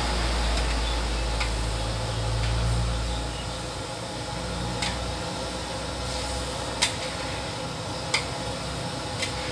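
Squid cooking in broth in a large steel wok: a steady hiss under a low rumble that lasts about three seconds. In the second half a metal spatula stirring the wok knocks against it four times, sharp short clicks.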